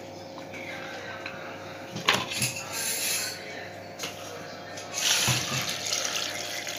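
Water poured into a plastic mixer-grinder jar of cut carrot pieces, a splashy hiss about five seconds in, after a sharp knock of handling about two seconds in.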